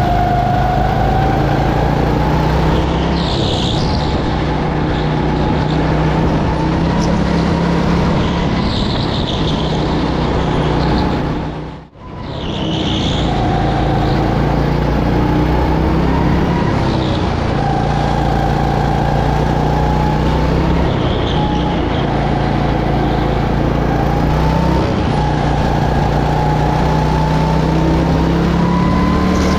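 Go-kart engine heard onboard at racing speed, its pitch climbing repeatedly as it accelerates out of corners and dropping back as it slows for the next. The sound dips out and back in briefly about twelve seconds in.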